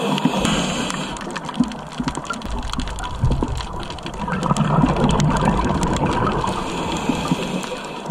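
Underwater noise picked up through a camera's waterproof housing: a steady rushing hiss with scattered sharp clicks, and deeper rumbling surges about three and five seconds in.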